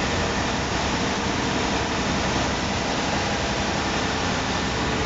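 Riverboat's engine running steadily in its engine room: a very noisy, even mechanical din that does not change.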